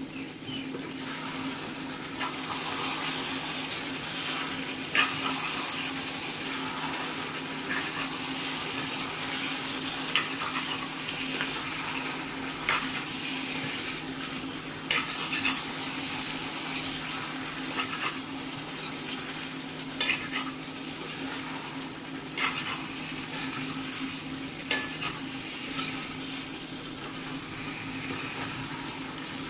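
Mutton, onions and tomatoes frying in a cast-iron skillet with a steady sizzle, stirred with a spatula that scrapes and knocks against the pan every few seconds. A steady low hum runs underneath.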